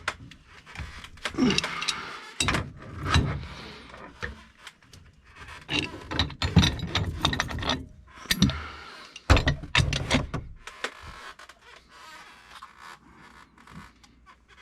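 Irregular clanks, knocks and scraping of metal hand tools and pipe fittings being handled and worked, as in fitting a pressure reducing valve. The activity dies down about eleven seconds in.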